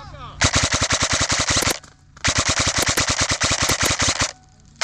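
Airsoft gun firing on full-auto: two long bursts of rapid clicking shots, the second about two seconds long, with a short third burst starting at the very end.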